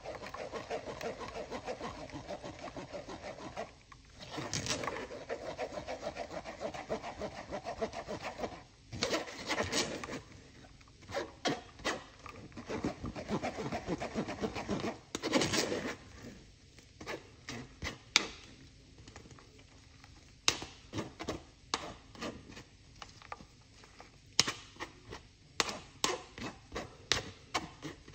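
Blended pomegranate pulp being scraped and worked through a fine mesh strainer: a rough, rasping rubbing for about the first half, giving way to scattered sharp taps and clicks.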